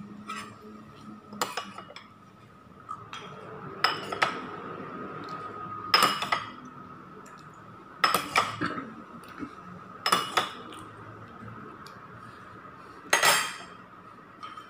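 Metal spoon clinking against porcelain bowls as soup is ladled from a serving bowl into a rice bowl: about seven sharp clinks, some in quick pairs, every one to three seconds.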